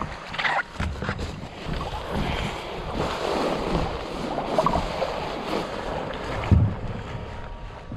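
Sea waves washing and wind on the microphone, with scattered small knocks and one louder thump about six and a half seconds in.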